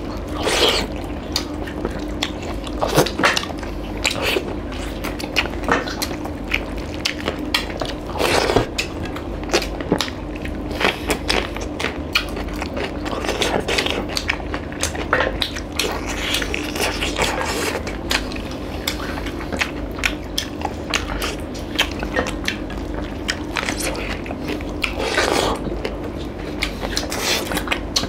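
Close-miked eating: wet chewing and smacking of chicken curry and rice eaten by hand, with many small irregular clicks and fingers working on steel plates, over a steady low hum.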